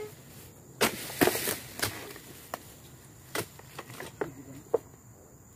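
Oil palm harvesting chisel (dodos) chopping into the frond bases and bunch stalks on a palm trunk: a string of about seven sharp chops, irregularly spaced.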